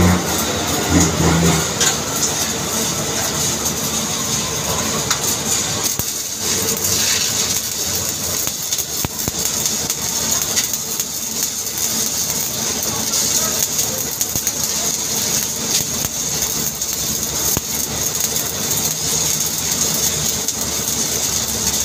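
Stick welding arc crackling and sizzling steadily as an overhead weld is run with a coated rod electrode. A low hum is heard in the first second or two.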